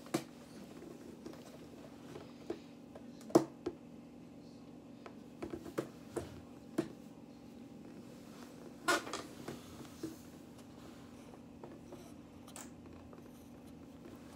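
Scattered soft knocks and rustles from handling, as a kitten is lifted and held against clothing, over a steady low room hum; the loudest knocks come about three and a half seconds and nine seconds in.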